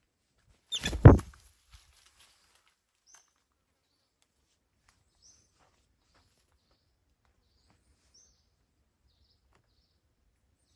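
A loud, short thud about a second in, then faint, short high bird chirps every second or two.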